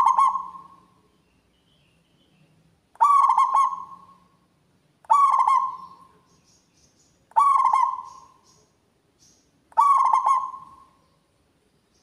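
Zebra dove (perkutut) singing its cooing song: the tail of one song at the start, then four short, loud songs about two seconds apart, each a quick run of rolling coo notes fading out.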